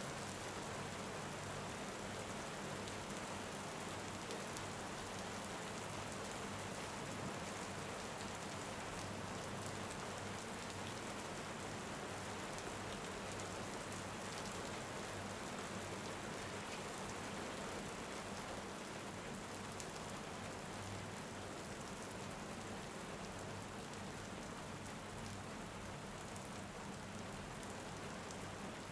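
Steady rain falling: an even hiss with a light patter of drops.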